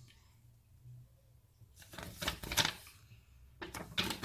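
Paper and packaging being handled: a rustle about two seconds in, then a few light clicks near the end.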